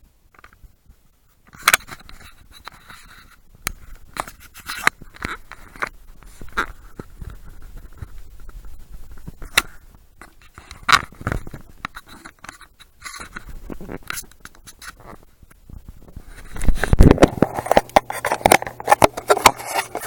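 Handling noise from a small action camera: scattered sharp clicks and scrapes. About three quarters of the way through it becomes a louder, denser rubbing and rustling with a low steady hum under it.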